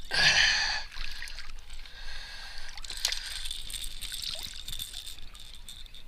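A short burst of splashing water in the first second, then faint sloshing and small knocks as a hooked fish is landed and handled in the boat.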